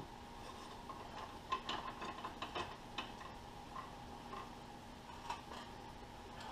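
Scattered light metallic clicks and ticks of hands and tools working the hose fittings on a J.I. Case hydraulic cylinder, clustered in the first half with a few single ticks later.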